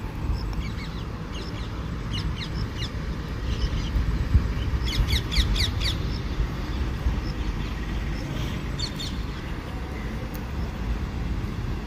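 Birds chirping in quick runs of short, high notes, the clearest about five seconds in and again near nine seconds, over a steady low rumble.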